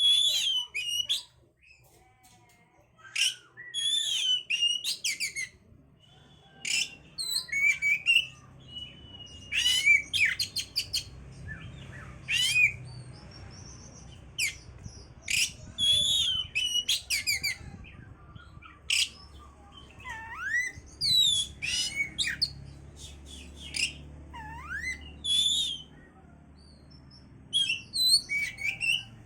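Oriental magpie-robin singing a fast, varied song in short bursts of sharp chirps, whistles and quick trills, with brief pauses between phrases.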